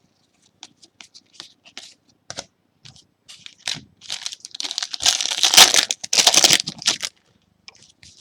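Trading cards being handled and slid past one another in short swishes, with a louder run of rustling and crinkling from about five to seven seconds in.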